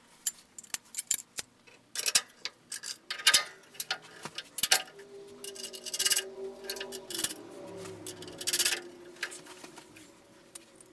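Scattered clicks, taps and light metallic clinks as the hinged radiator wing panel on the back of a VW Baja Bug buggy is lowered and its fittings are handled. A steady hum sounds underneath for a few seconds in the middle.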